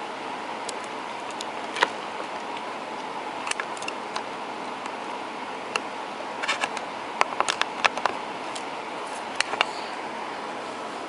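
Light clicks and taps of small metal repair tools handled on a workbench, scattered irregularly over a steady hiss.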